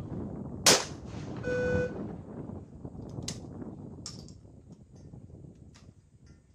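A single 12-gauge over-and-under trap shotgun shot about a second in, followed by a short electronic beep and two lighter clicks.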